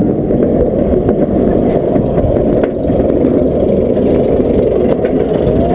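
Wind rushing over the microphone of a camera riding a moving roller coaster, with the rumble of the coaster's wheels on the steel track underneath.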